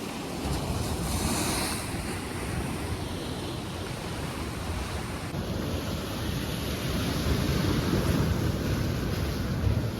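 Heavy sea surf breaking and washing up the beach, with a hissing surge of water about a second in and the rumble building again near the end. Wind buffets the microphone.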